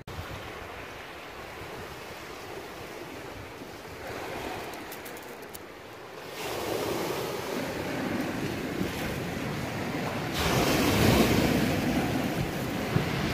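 Sea washing on a shingle beach with wind on the microphone, an even rushing noise that grows louder about six seconds in and again about ten seconds in.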